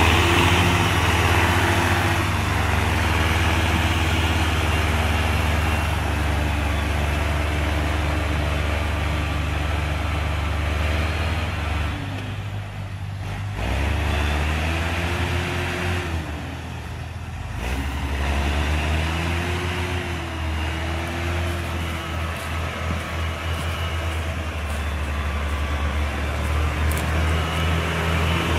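IMT 577 tractor's diesel engine working hard under load, hauling a log-laden trailer through deep mud. The revs rise and fall, easing off twice about halfway through before picking up again.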